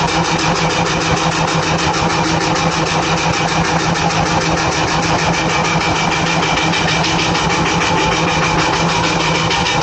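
Engine-driven belt machinery running steadily, with a fast, even beat.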